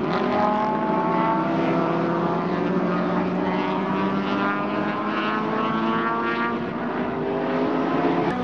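Touring-car racing engines running out on the circuit: a steady engine note whose pitch slowly rises and then falls.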